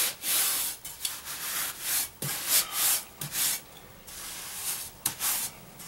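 Trowel scraping and spreading a stiff, not-too-wet mortar mix across a subfloor, in about six or seven short strokes.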